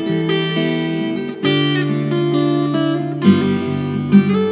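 Acoustic guitar strumming chords in an instrumental passage of a song, with no singing.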